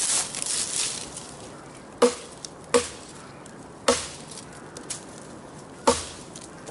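A thick Camillus Carbon V kukri chopping into a wooden stick braced against a log: four sharp, separate chops, the first about two seconds in. A brief scraping rustle comes before them, near the start.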